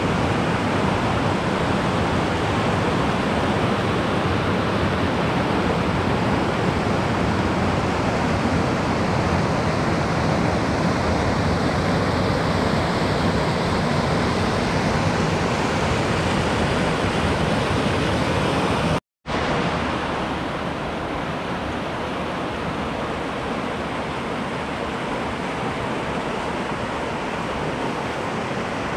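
Greer Spring's outflow rushing and churning over rocks in white-water rapids, a loud, steady rush of water. About two-thirds of the way through it cuts out for a moment and comes back slightly quieter.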